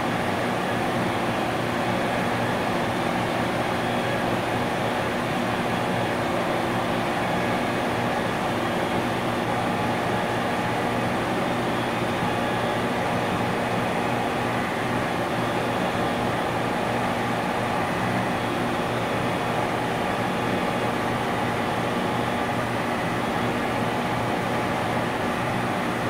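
Industrial compressor running steadily: an even mechanical hum with a few steady low tones under a constant hiss.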